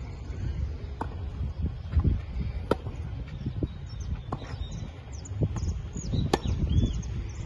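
Tennis balls struck by rackets in a baseline rally: sharp pops about every second and a half to two seconds, the near player's hits louder than the far player's.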